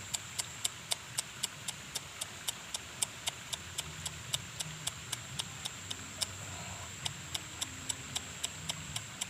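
An insect calling: a steady high buzz with an even ticking about four times a second.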